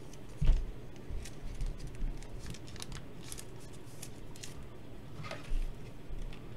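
Trading cards being handled on a tabletop: short rustles and scrapes of card and plastic, with a soft knock about half a second in and another around five and a half seconds.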